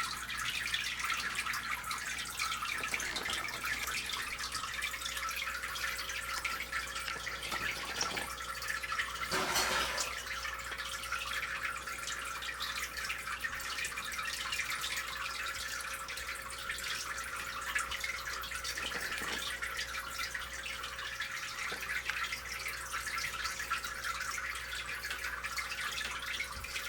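Water trickling and dripping steadily in a running aquarium, with a faint steady hum under it. There is a brief louder rush of water about nine and a half seconds in.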